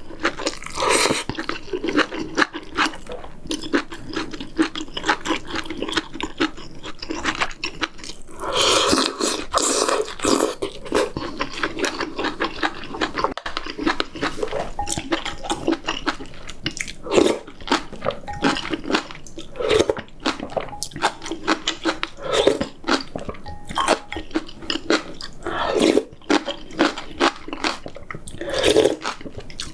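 Close-miked eating sounds: wet chewing of kimchi stew and pork rib meat, with short slurps and clicks of chopsticks against the metal pot.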